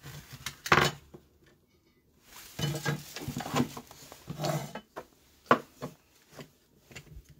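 Clattering and knocking of plastic and metal parts being picked up and set down on a wooden workbench: a sharp knock about a second in, two busier bursts of handling in the middle, and a single sharp click later.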